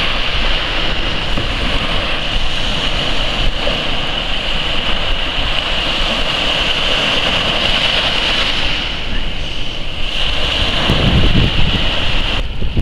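Small waves breaking and washing up a sandy beach and splashing against a rock jetty, a steady rush of surf. Wind buffets the microphone with low rumbling gusts near the end.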